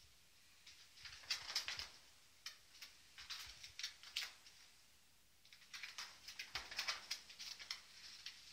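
Kittens scampering and scrabbling on carpet while chasing a toy on a cord: bursts of rapid scratchy clicks from paws and claws, about a second in, again around three to four seconds, and a longer run from about five and a half seconds.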